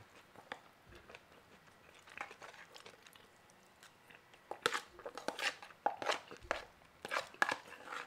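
Close-miked chewing and crunching of food, with a spoon scraping and clicking in a plastic food tub. The crunches are sparse at first and come thick and fast in the second half.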